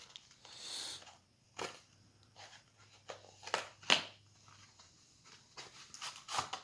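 Handling of a cardboard mystery box and the card packs inside it: a short rustle about half a second in, then scattered clicks and taps, the sharpest near four seconds.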